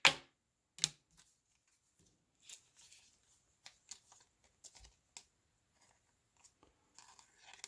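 Baseball cards being handled and flipped through by hand: a scattered series of soft clicks and brief rustles of card against card.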